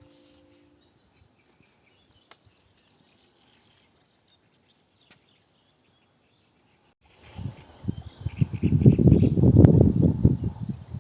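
Faint outdoor ambience of insects and birds chirping, then about seven seconds in a loud, gusty low rumble sets in, typical of wind buffeting the microphone.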